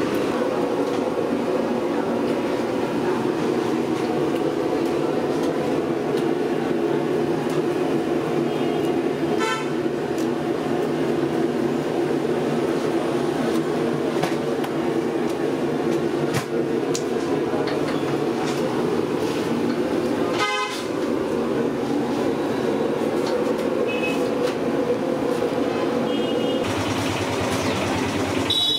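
A steady, loud droning hum, with a couple of brief rattles about a third and two-thirds of the way through and a short high tone near the end.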